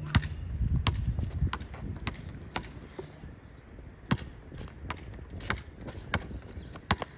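Basketball being dribbled: sharp bounces about every half second, pausing for about a second midway.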